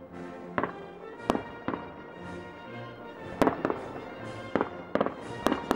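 Aerial fireworks bursting: a string of sharp bangs, loudest about three and a half seconds in and again near the end, over music with long held notes.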